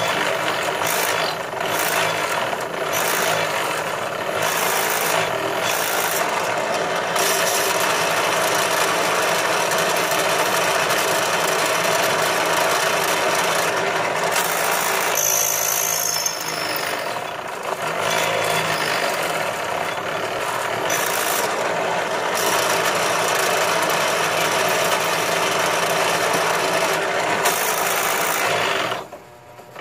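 Benchtop drill press running, its twist bit cutting into a block of copper: a steady motor hum under the scraping of the bit in the metal. The sound drops away briefly near the end.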